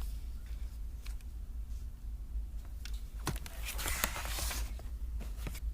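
Crayola felt-tip marker drawing on paper: scattered short taps and scratches, with one longer scratching stroke about four seconds in. A low steady hum lies underneath.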